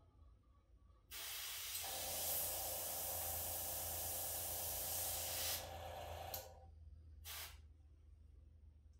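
Airbrush spraying paint: a steady hiss of air and paint starting about a second in and lasting about four and a half seconds, then a short second burst near the end.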